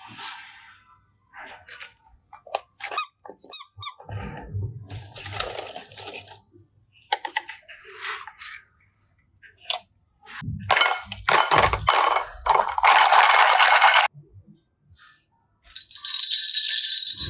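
Slime and clay being squeezed and squished by hand: irregular squelches, clicks and squeaks, with a longer crackling stretch about two-thirds of the way in. A brighter ringing sound comes in near the end.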